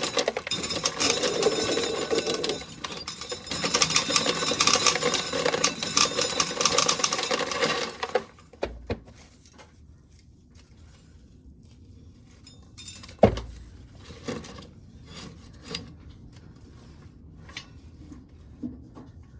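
Corn sheller stripping an ear of corn: a dense grinding rattle of kernels for about eight seconds, then stops, leaving scattered clicks of kernels and handling with one sharp knock about halfway through.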